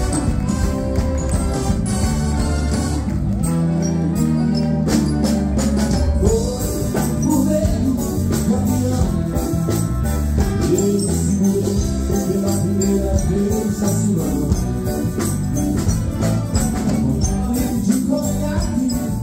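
Live wind band of saxophones, clarinets, trumpets and electric guitars playing a song, with a male singer's voice coming in over the band about six seconds in.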